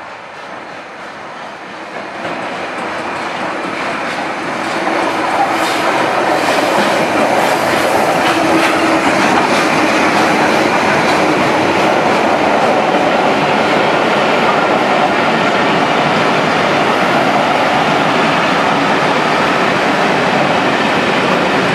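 Steam-hauled passenger train, a Bulleid light Pacific locomotive and its coaches, approaching and rolling past close by. The rumble grows louder over the first few seconds and then holds steady as the coaches pass. Wheels click over the rail joints, most sharply about six seconds in.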